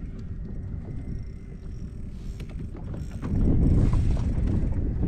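Mechanical creaking and clicking from gear on a fishing kayak, over a low rumbling noise that grows louder about three seconds in.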